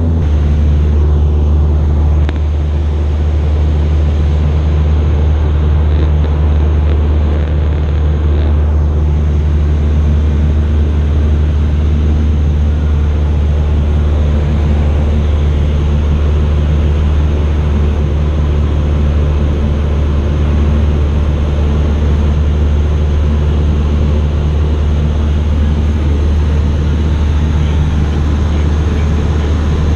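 Cessna 172's piston engine and propeller droning steadily in flight, heard from inside the cabin as a loud, even low hum.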